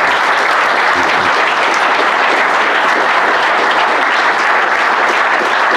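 Large audience applauding: many hands clapping at once in a dense, steady wash.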